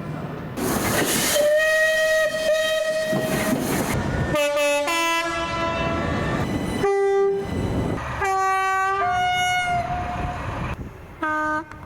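A run of short clips of British trains sounding their horns: several separate two-tone horn blasts, each jumping between a higher and a lower note, over the rushing and clatter of trains going by. The clips change suddenly from one to the next, and a short low horn note sounds near the end.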